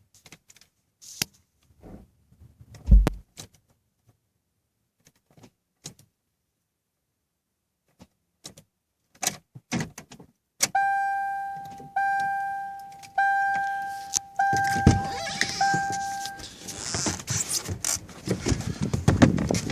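A Toyota Camry's warning chime dinging five times, about a second apart, each ding fading away. Before it come scattered clicks and one heavy thump.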